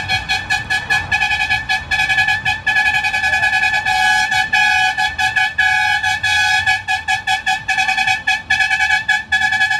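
A truck horn sounding one unchanging high note in a rapid rhythm of short toots, with a few longer blasts, over a low rumble.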